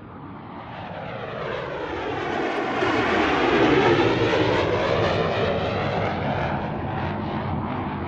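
A fixed-wing airplane passing low overhead. Its engine noise swells to a peak about halfway through with a sweeping, phasing tone, then slowly fades.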